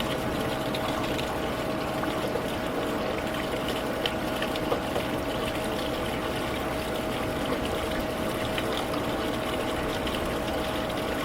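Water rushing steadily out of an Atwood RV water heater's tank drain as the tank is flushed with a wand to wash out sediment. A constant thin hum runs under the rush.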